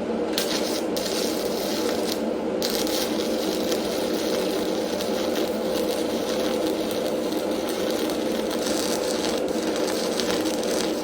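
Stick welding with a 7018 electrode on painted steel: the arc crackles and sizzles, struck about half a second in, breaking off briefly a little after two seconds and then running on, over a steady hum.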